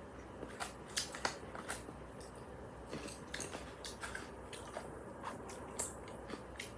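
Spoon clicking and scraping against a bowl while stirring rice in soup: about a dozen small, sharp, irregular clicks, the loudest about a second in.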